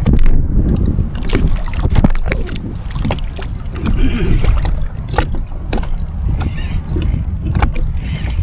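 Wind rumbling on the microphone and water sloshing against a kayak, with many small sharp clicks and knocks and, over the last two seconds or so, a thin steady high whine.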